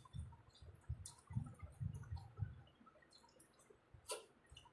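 Faint wet clicks and squishes of eating biryani and curry gravy by hand, with a sharper click about four seconds in.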